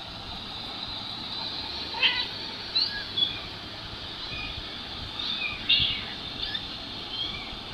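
Kittens mewing, played back through a mobile phone's small speaker: a string of short, thin, high-pitched mews, some rising in pitch, over a steady hiss.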